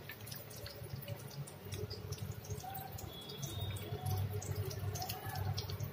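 Samosas deep-frying in oil in a kadhai: a steady sizzle with many small, quick crackles and pops.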